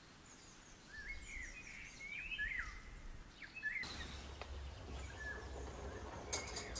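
Small birds chirping and calling in short, rising and falling notes over faint outdoor background noise. About four seconds in, a low steady hum comes in underneath.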